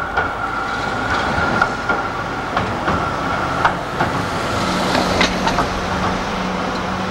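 A Melbourne A-class electric tram approaching along street track: its wheels click and rattle over the rails, irregularly, several times. A steady low hum comes in about two-thirds of the way through as it draws near.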